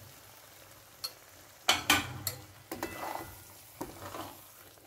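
A spatula scraping and stirring peas and freshly added milk around a hot kadhai, in several strokes starting about two seconds in, the milk sizzling in the pan. A small click comes about a second in.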